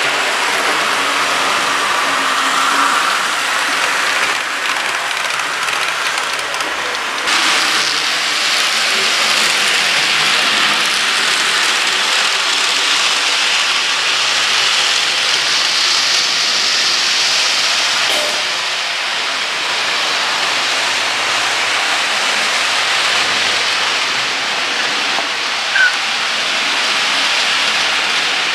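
HO scale model train rolling along its track, a steady hiss-like running noise of wheels on the rails, with one brief squeak near the end.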